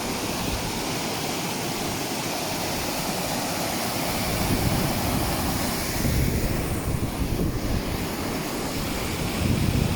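Wind blowing across the microphone, a steady rush with gusty low buffeting that swells a few times.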